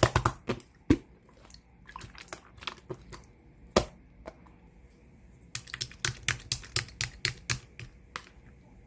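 Clear sky-blue slime being squeezed and poked by hand, giving sharp sticky clicks and pops in quick runs, with a fast series of them from about the middle to near the end.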